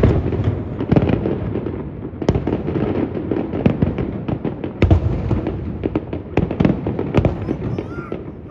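Fireworks show bursting: a rapid run of sharp bangs and crackles over a continuous low rumble. The loudest bangs come near the start, about a second in and around five seconds in.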